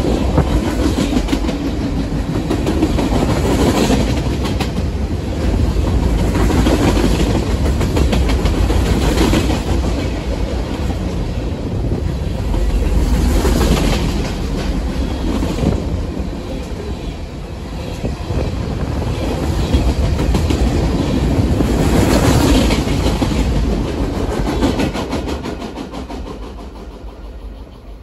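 Freight train's boxcars rolling past close by, steel wheels clacking over the rail joints, the sound swelling and easing every few seconds as the cars go by. It fades away near the end as the last car passes.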